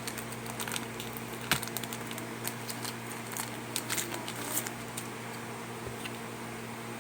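Faint crinkling and clicks of a foil Pokémon booster pack and its cards being handled, with one sharper click about one and a half seconds in; the handling dies away after about five seconds, leaving a steady low hum.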